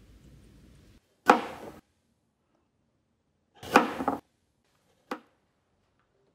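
Three short, sudden swishing hits of film sound design against dead silence, about a second, three and a half seconds and five seconds in, the last one the briefest. A faint hum cuts off just before the first.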